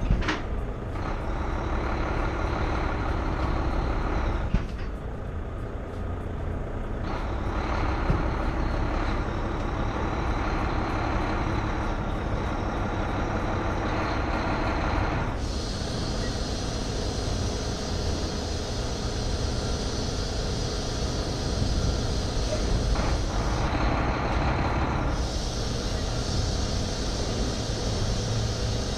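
Volvo semi-truck's diesel engine running at low speed as the rig creeps to slide the trailer's tandem axles. A steady hiss joins it for long stretches in the second half.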